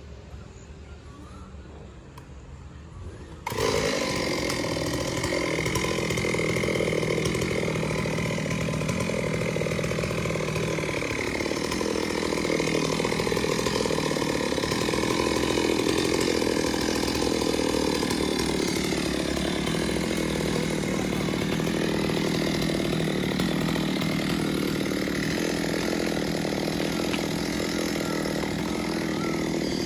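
Chainsaw running at full throttle, cutting wood. It comes in suddenly loud about three and a half seconds in, after a quieter steady start, then holds steady, with its pitch dipping slightly now and then.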